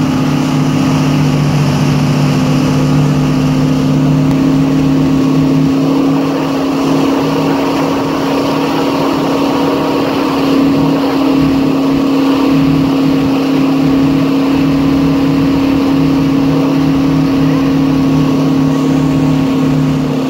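Wakesurf boat's inboard engine running at a steady cruising speed, a constant low drone, over the rush of the churning wake water.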